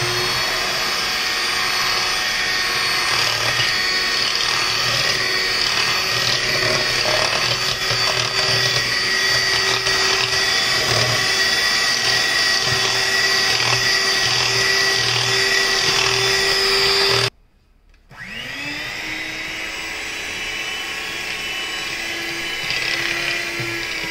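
Electric hand mixer running steadily with its beaters whipping butter and powdered sugar in a steel bowl for buttercream. Its motor whine cuts out about seventeen seconds in, then rises back up to speed a second later.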